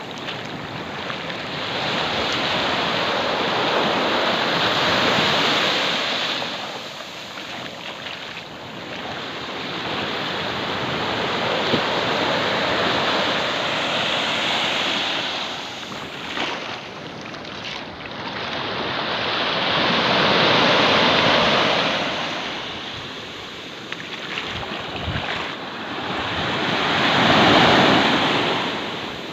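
Small sea waves breaking on a sandy shore and washing up the beach, rising and falling in four slow surges.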